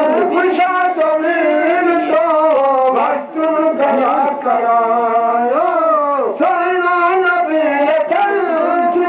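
Voices singing a Sindhi molood, a devotional chant in praise of the Prophet, in one melodic line of long held notes that slide up and down, with no beat.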